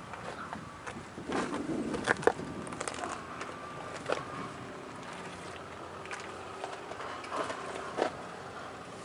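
Scattered light clicks and knocks with some rustling. There is a busier cluster with two sharper knocks about two seconds in, another knock about four seconds in, and one near the end.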